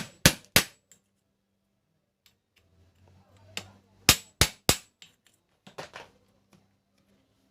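Hammer tapping on metal during sewing machine repair: three quick, sharp strikes at the start, a few lighter knocks, then another three quick strikes about four seconds in.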